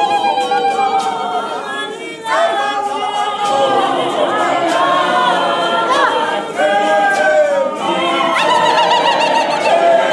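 A group of voices singing together unaccompanied, like a choir.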